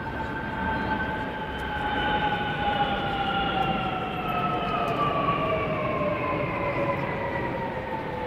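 Large jet aircraft flying low overhead: a steady engine rumble with a whine that slowly falls in pitch as it passes.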